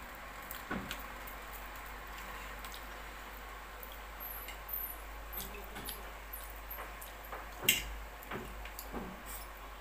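Close-up eating sounds of someone chewing sticky steamed rice cakes (puto kutsinta): soft wet mouth noises and scattered small clicks, with one sharper tap about three quarters through, like a metal fork on the plate.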